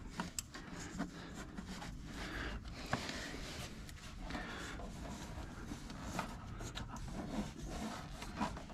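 Faint, irregular scraping and rubbing with scattered light clicks: hand tools and metal parts being worked under the hood of a car.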